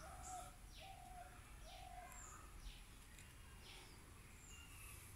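Faint birdsong: a few short, low, level notes in the first two seconds, and quick high falling whistles repeating about once a second.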